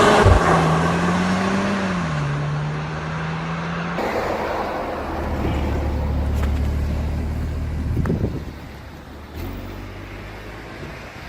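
Cupra Formentor's engine and exhaust running after an acceleration: a steady engine note drops in pitch about two seconds in, then after a cut gives way to a lower, steady drone that fades near the end.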